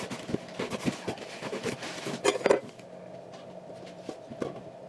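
Kitchen clatter: dishes and utensils being handled, a run of irregular light knocks and clinks, with a couple of louder knocks about halfway through.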